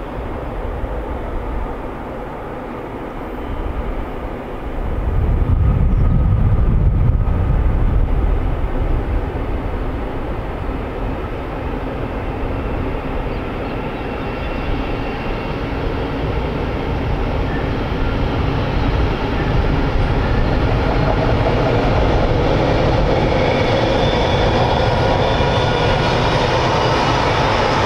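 Two GE-built NR class diesel-electric locomotives hauling a freight train, their diesel engines running with a steady drone that grows louder as they approach. A deep rumble swells about five seconds in and eases a few seconds later.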